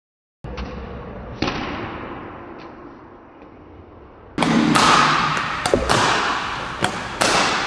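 Badminton rackets striking shuttlecocks during a fast drill, sharp hits echoing in a large hall. A few softer knocks at first, then from about four seconds in a quick run of hits, about two a second.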